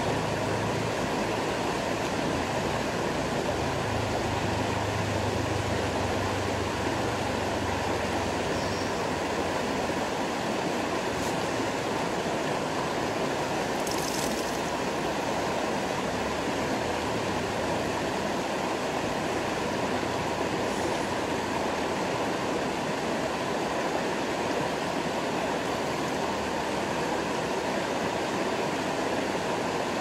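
Shallow rocky river running steadily over stones, an even, unbroken water noise.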